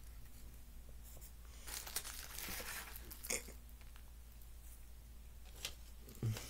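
Quiet crinkling and crumbling of dry cannabis flower being packed into a bowl by hand, with three light clicks.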